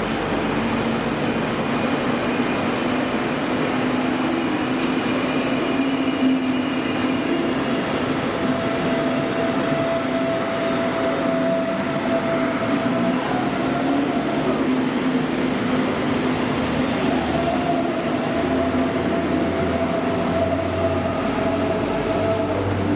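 Munich S-Bahn class 423 electric multiple unit running along the platform: a steady rumble of the cars under an electric motor whine held at a few fixed pitches that drift slightly.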